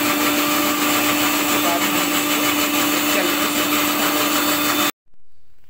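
Electric mixer grinder running steadily at speed, its motor giving a constant hum as it blends chunks of ash gourd (white petha) with a little water into pulp. It cuts off abruptly near the end.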